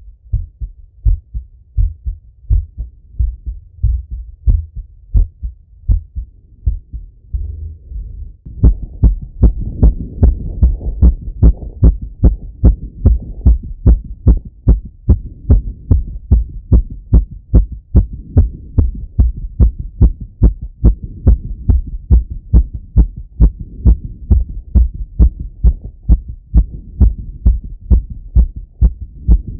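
A man's heartbeat heard through a stethoscope on his chest, beating fast and steadily after a workout set. About eight seconds in the beats become louder, with a low rushing noise between them.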